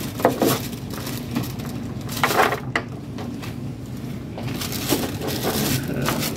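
Handling noise as flexible cleaning tubing and adapters are fitted to a flexible endoscope over plastic sheeting: irregular crinkling and rustling with a few sharper clicks, over a steady low hum.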